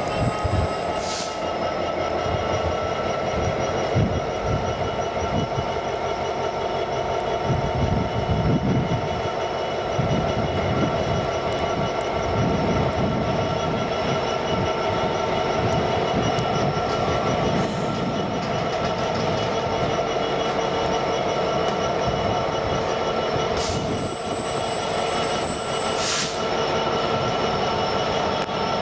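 A train running past on the line, with a set of steady squealing tones from the wheels over a rumble.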